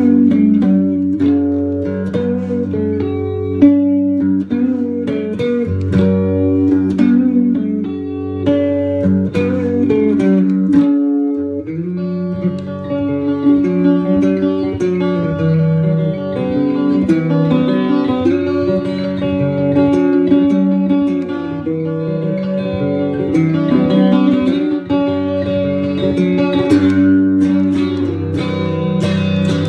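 Unaccompanied Gretsch electric guitar played fingerstyle-like: picked melody notes over steady bass notes. The bass drops out briefly about eleven seconds in.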